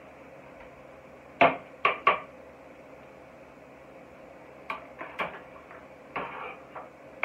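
Knife chopping on a cutting board: three sharp chops about a second and a half in, then lighter taps and clicks later, over a steady low hum.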